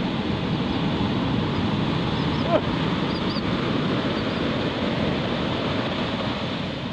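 Heavy surf from a hurricane swell breaking and washing toward the shore, a steady rush of whitewater, with one brief sharp sound about two and a half seconds in.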